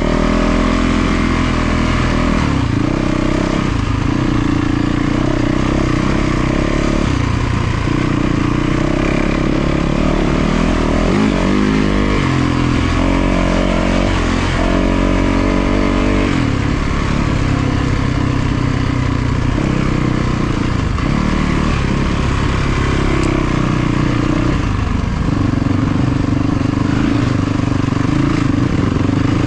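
450cc four-stroke single-cylinder dirt bike engine under way off-road, its pitch climbing and dropping in steps as the throttle is worked and the gears change.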